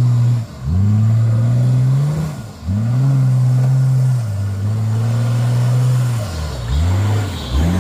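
Turbocharged Nissan Patrol's engine revving hard under load as it climbs a hill, in a string of surges that each rise and hold, coming quicker near the end.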